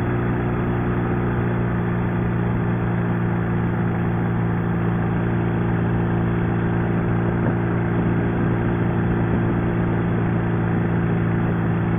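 Sidecar motorcycle's overhead-valve engine running steadily at highway cruising speed, an unbroken drone that holds one pitch throughout.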